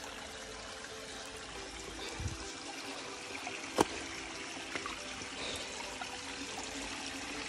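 Small rocky stream trickling over stones, a steady water sound. A single sharp click comes just before the four-second mark.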